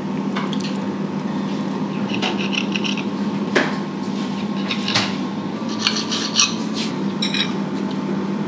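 Table knife and fork clinking and scraping against a ceramic plate, cutting through soft, caramelised French toast: a few sharp clicks and short scrapes. A steady low hum runs underneath.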